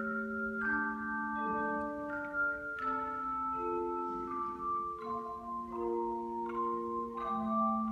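Ensemble of tone chimes playing a melody over held chords: clear, bell-like notes struck one after another, each ringing on long and overlapping the next.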